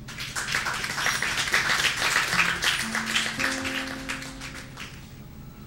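Audience applauding, starting suddenly and fading away toward the end, while a few single acoustic guitar notes are plucked and left ringing in the middle.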